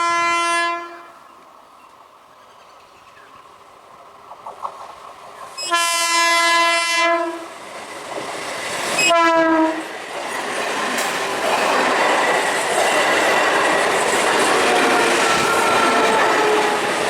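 Indian electric train's horn blowing three short blasts as it approaches, the third dropping in pitch as the train reaches the crossing. The train then runs past with a steady rush and wheels clattering over the rail joints.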